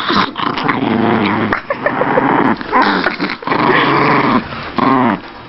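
A pet dog growling in a string of long, grumbling growls whose pitch bends up and down, with a few short gaps between them. It is the sound of an annoyed dog being teased.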